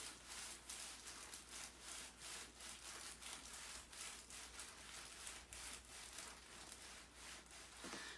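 Faint rhythmic rubbing of hands over a person's neck, about three strokes a second, as a chiropractor palpates the neck.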